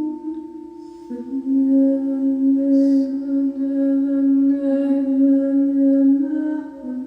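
Singing bowl ringing with a steady tone, joined by a voice toning long held notes for sacred sound healing, the notes stepping to a new pitch about a second in and again near the end.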